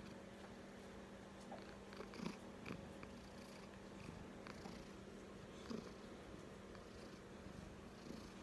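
Seven-month-old kitten purring faintly and steadily while it is scratched under the chin, a sign of contentment. A few soft rustles of fingers in its fur come about two to three seconds in and again before the end.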